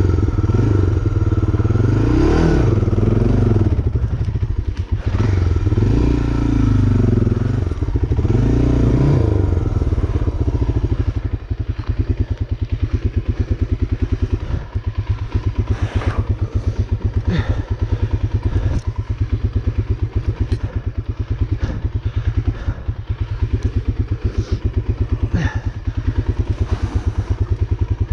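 An engine revving up and down several times over the first ten seconds, then running at a steady lower speed with an even pulsing beat. A few sharp knocks come through about halfway and near the end.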